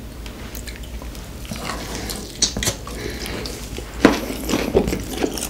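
Close-miked crunching and chewing of crispy fried chicken with a pickle slice and a cube of pickled radish: a run of sharp, crisp crunches, the loudest about four seconds in.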